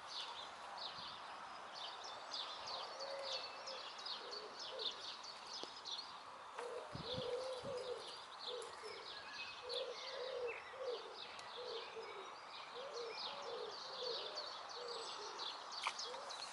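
Small birds twittering in quick high chirps, with a pigeon cooing in a run of low repeated notes from about six seconds in. A brief low thud comes about seven seconds in.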